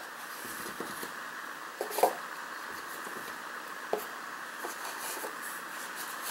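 Light knocks and taps from a plastic dough tray being handled as soft pizza dough balls are set into it, the loudest about two seconds in, over a steady faint room noise.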